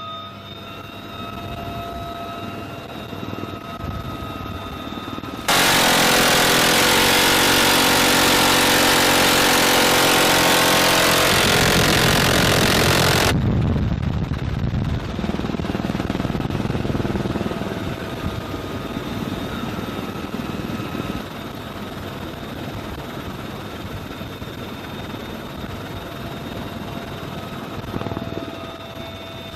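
Bell UH-1Y Venom helicopter running, with a steady turbine whine over the rotor. About five seconds in, a much louder harsh roar takes over for about eight seconds, then stops, leaving the helicopter running again.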